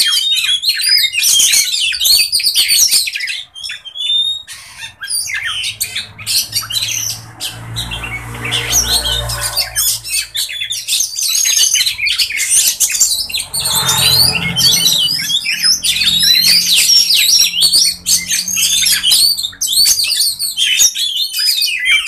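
Caged oriental magpie-robins (kacer) singing and chattering, a dense, rapid run of varied whistles and harsh notes. A low rumble sounds underneath around the middle.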